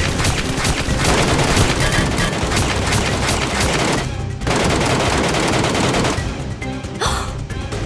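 Rapid machine-gun-style gunfire sound effects over action background music. The shooting breaks off briefly about four seconds in and stops about six seconds in, leaving the music with a short swoosh near the end.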